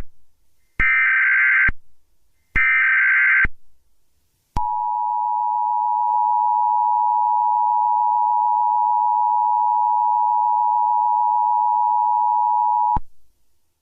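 Emergency Alert System broadcast tones: two short digital data-burst header squawks about a second apart, then the steady two-tone EAS attention signal, held for about eight seconds and cutting off suddenly.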